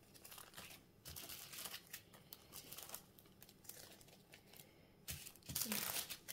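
Clear plastic bags crinkling and rustling as small zip bags of diamond painting drills are handled, in irregular bursts that are loudest near the end.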